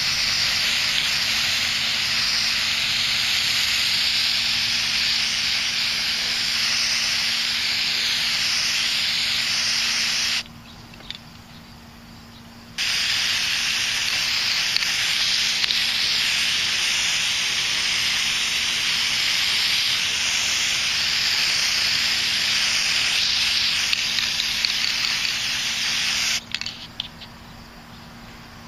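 Aerosol can of flat black spray paint hissing steadily in two long bursts, with a pause of about two seconds near the middle; the spraying stops shortly before the end.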